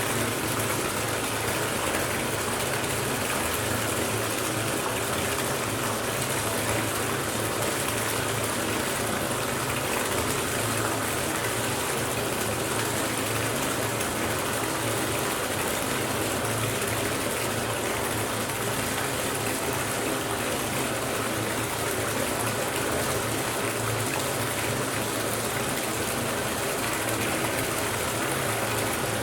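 Bathtub filling from the tap: water gushing steadily into the tub.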